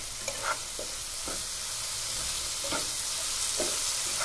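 Onion, tomato and ground-spice masala sizzling in oil in a nonstick kadai, with a spatula scraping through it a few times at uneven intervals. The spices are being fried down (kashano) before water goes in.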